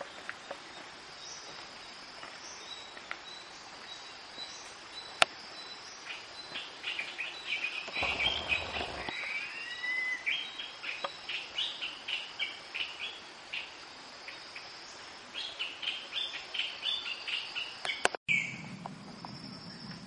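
Forest birds calling in two bouts of rapid repeated chirps, the first starting about six seconds in, with a couple of sweeping whistled notes in the middle, over a steady high insect drone. A sharp click about five seconds in and another near the end, the second followed by a brief dropout.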